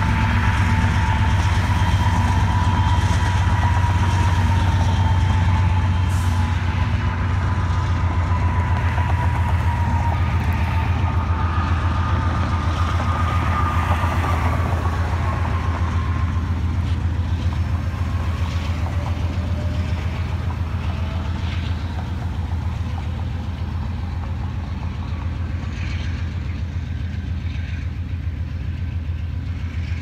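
Union Pacific diesel locomotive pushing at the rear of a loaded coal train, its engine rumbling steadily as it rolls away and slowly fades. A thin, high, wavering whine sits over the rumble through the first half, with a fainter sliding tone later.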